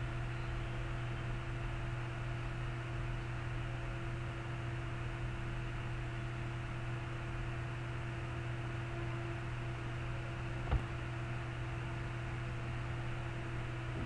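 Steady low electrical hum with an even hiss, and one short click about eleven seconds in.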